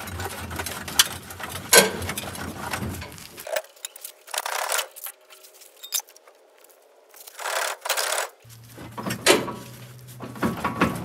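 Metal clinks, scrapes and rattles from hand work on the underside of a car, in several short spells with sharp clicks between them.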